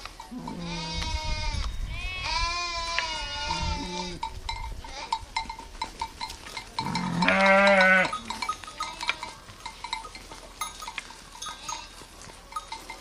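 Sheep bleating: several drawn-out wavering bleats in the first four seconds, then one louder bleat about seven seconds in. Faint short ticks repeat in the background.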